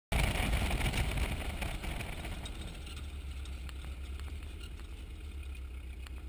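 Off-road race truck's engine running steadily, heard from inside its stripped cab while driving. The sound cuts in abruptly, is louder for the first second or two, then settles to a steady low hum.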